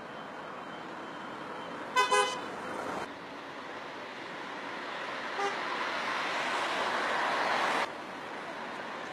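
A car horn gives a brief toot about two seconds in, the loudest sound, over steady street traffic. A vehicle then passes close, its road noise building for a few seconds and stopping abruptly near the end.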